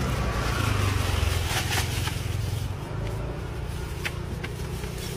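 Low rumble of road traffic that eases after about two seconds, with plastic bags rustling and styrofoam takeaway boxes clicking as they are handled.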